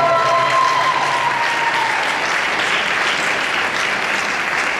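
Audience applauding, with a long, high held cheer over the first couple of seconds.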